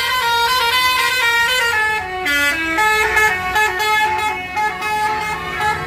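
Telolet basuri bus horn, a multi-tone melody horn, playing a quick tune: several horn notes sound together and step to new pitches every fraction of a second.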